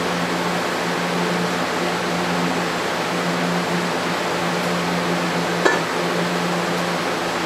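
Electric fans of a tornado-simulator machine running at their highest speed: a steady rush of air over a low hum, with one short click about two-thirds of the way through.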